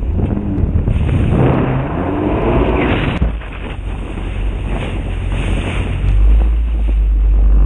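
Personal watercraft (jet ski) running at speed over choppy water, its engine note wavering up and down over the first three seconds, with wind buffeting the microphone and spray hissing. A heavy low wind rumble takes over near the end.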